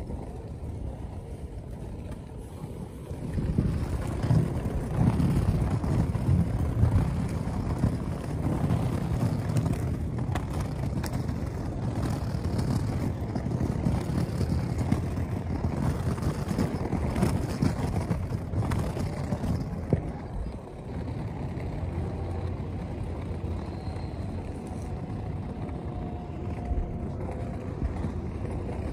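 Outdoor ambience of road traffic and wind: a low, uneven rumble with no clear tone or rhythm, growing louder a few seconds in.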